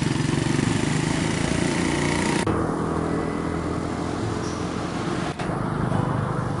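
A motor vehicle engine running steadily, a low rumble that changes abruptly about two and a half seconds in and again near the end.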